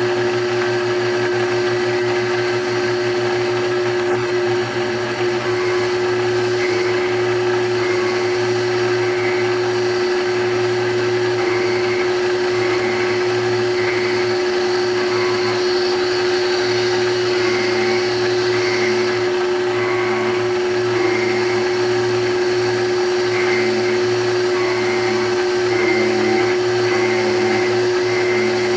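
Belt-driven horizontal cutting frame on a rose engine lathe, its spinning cutter taking light cuts in the side of a wooden cylinder: a steady mechanical hum and whine. From a few seconds in, a faint pulsing repeats about once a second as the cutter bites.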